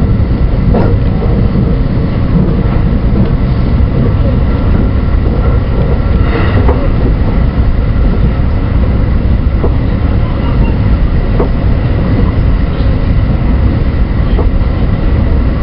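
Running noise of a JR West 223 series 2000-subseries electric train at speed, heard from inside the driver's cab: a steady low rumble of wheels on rail with occasional short clicks and a faint steady high whine.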